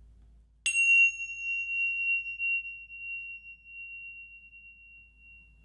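A high, bell-like chime struck once, under a second in. Its upper overtones die away quickly, leaving one clear ringing tone that fades slowly over about five seconds.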